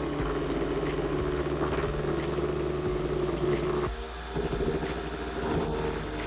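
A motor-driven machine running steadily with a constant hum. It dips briefly just before four seconds in, then picks up again.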